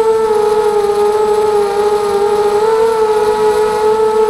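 Brushless motors and propellers of a ZMR250 racing quadcopter whining in flight, heard through its onboard camera; the pitch sags a little about one and a half seconds in and rises again with the throttle.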